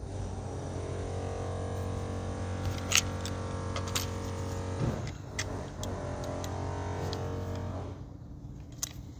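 A steady mechanical hum with a clear pitch, like a running motor, dips in pitch about five seconds in, picks up again, and fades near the end. Over it come a few sharp metallic clicks as the curved sica dagger's blade is handled and worked against its metal-fitted sheath.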